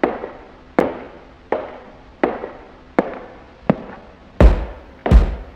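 Percussion of a soundtrack intro: sharp, ringing hits about every three-quarters of a second. Near the end they grow louder and deep bass booms join in.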